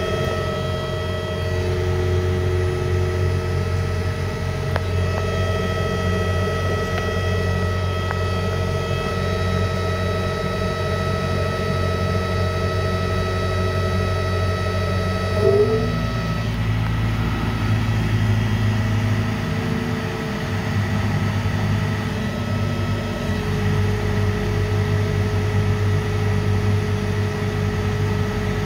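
Electric motor running on a variable frequency drive: a steady hum with several whining tones, the motor apparently overloaded by low output voltage from the drive. About halfway through there is a brief chirp and the tones shift to a new pitch.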